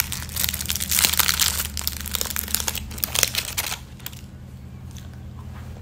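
Crinkling and crackling of a wrapper or packet being handled and worked open, dense for almost four seconds and then much fainter.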